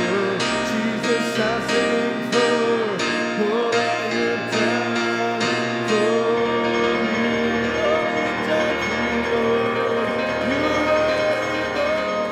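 Worship song played on piano and keyboard, with voices singing a slow, wavering melody over it.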